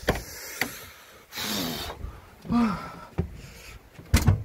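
A man's loud breath close to the microphone, then a short grunt that drops in pitch, and a sharp thump near the end as he ducks into the bus.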